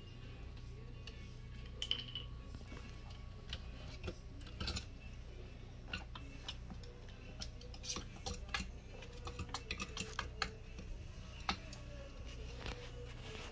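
Kittens play fighting: scattered light clicks and taps of small paws on hard surfaces, irregular and busiest in the second half, over a steady low hum.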